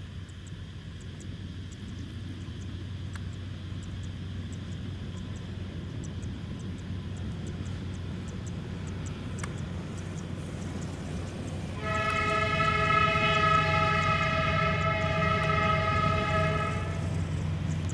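Passenger train's diesel locomotive approaching, its low engine rumble slowly growing louder, then one long horn blast of several tones together about twelve seconds in, lasting around five seconds.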